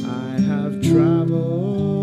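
Folk song on steel-string acoustic guitar with a man singing, played from a vinyl record; new plucked notes come in about half a second and about a second in, under a gliding sung line.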